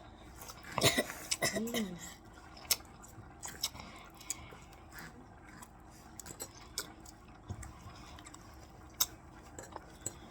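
A person eating spaghetti and hot dogs: chewing with scattered small clicks. About a second in there is a short loud cough-like burst, followed by a brief hum.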